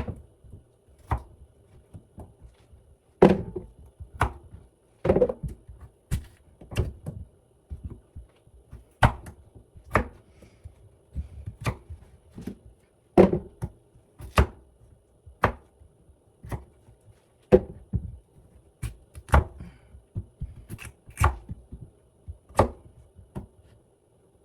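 Kitchen knife chopping potatoes into large chunks on a cutting board: sharp, irregular knocks roughly once a second.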